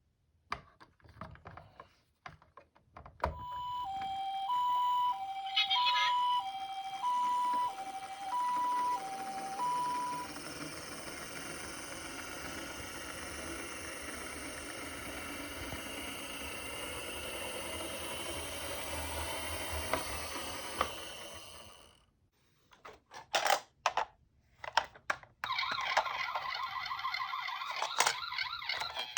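A toy ambulance's electronic two-tone siren, switching between a high and a low tone about every half second for about seven seconds after a click. The siren stops and the toy rolls down the slope with a steady rolling noise of its wheels that fades out after about ten seconds. Scattered clicks and knocks follow, and a wavering sound starts near the end.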